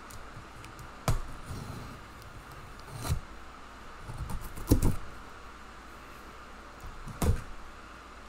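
Cardboard shipping box being opened by hand: several sharp knocks and cardboard scrapes as the flaps are worked loose, over the steady hum of a room fan.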